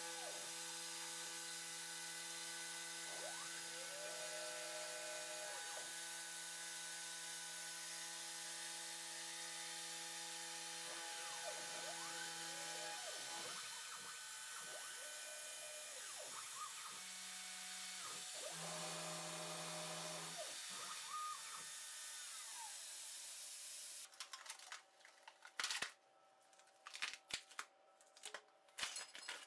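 A CNC milling machine running: a steady motor hum with an airy hiss over it, and tones that glide up and down as the axes move the cutter around the aluminium part. Near the end this gives way to scattered sharp clicks and scrapes of a metal blade working at the cut part.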